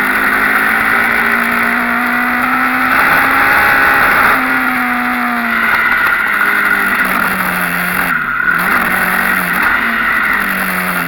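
Dirt bike engine being ridden hard on an enduro/motocross track, its pitch rising and falling with the throttle, with two quick drops in revs near the end.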